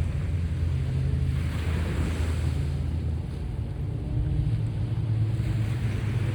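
Sea waves washing and surging, one swell building about two seconds in, under a heavy low rumble of wind on the microphone.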